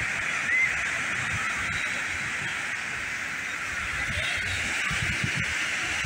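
Ocean surf breaking and washing onto a beach: a steady rushing noise, with one short, high chirp about half a second in.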